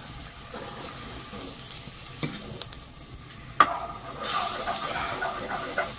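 Gram-flour paste being stirred into a pot of boiling pumpkin-leaf saag. A utensil knocks sharply on the pot about three and a half seconds in, and then a louder bubbling hiss rises from the pot.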